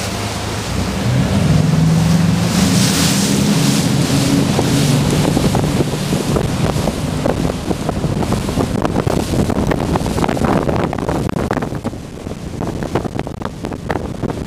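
Motorboat engines running hard as the boat speeds up, with water rushing along the hull. From about halfway on, wind buffets the microphone and covers the engine.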